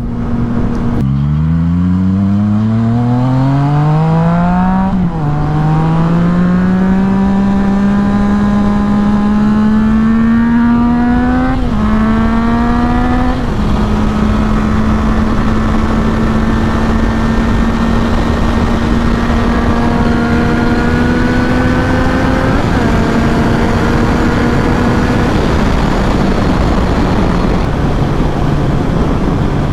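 Yamaha FZ-09's three-cylinder engine accelerating hard through the gears: the pitch climbs and drops back at upshifts about five, twelve and thirteen seconds in, then holds a near-steady cruise with two smaller drops near the end. Heavy wind noise on the helmet microphone runs underneath.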